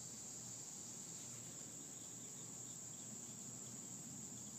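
A steady, high-pitched chorus of insects, unbroken and unchanging.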